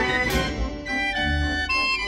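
Gavioli fairground organ playing a tune, its bass notes under held chords, with a crash from its percussion just after the start.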